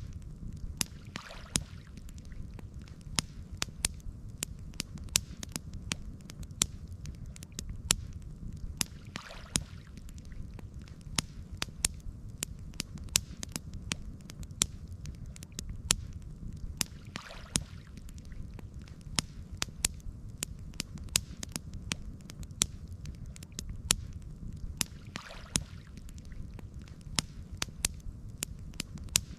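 Campfire crackling: a dense run of sharp, irregular pops and snaps over a steady low rumble of the burning fire. A faint soft swish comes back about every eight seconds.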